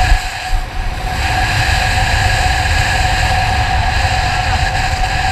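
Motorcycle running at road speed with a steady hum over a rumbling rush of wind and road noise. It dips briefly about half a second in, then carries on evenly.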